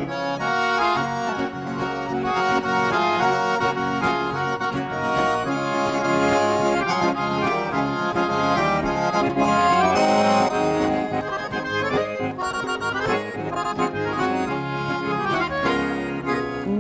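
Accordion playing the melody of an instrumental break in a song, with a rhythmic backing underneath.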